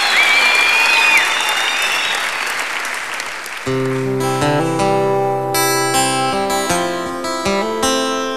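Audience applause dying away; about three and a half seconds in, an acoustic guitar starts strumming chords, the opening of a song.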